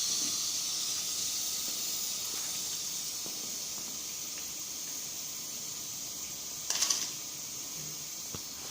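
Steady hiss of gas escaping under pressure during refrigerator gas work, easing off slightly, with a brief louder puff about seven seconds in.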